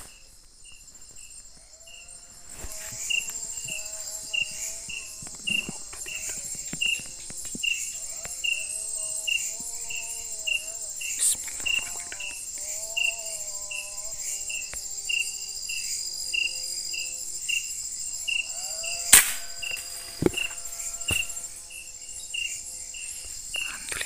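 Night insect chorus: a cricket chirping evenly about twice a second over a steady high-pitched insect hum, with some lower wavering calls in patches and a single sharp click about nineteen seconds in.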